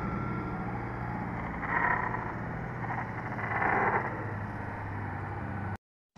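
A motorcycle engine runs steadily as the bike circles, rising in three short throttle swells about two, three and four seconds in. It cuts off suddenly just before the end.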